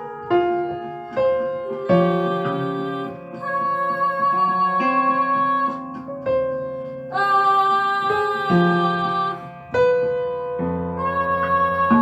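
Piano playing slow, sustained chords. Each chord is struck, rings, and fades before the next one a second or two later.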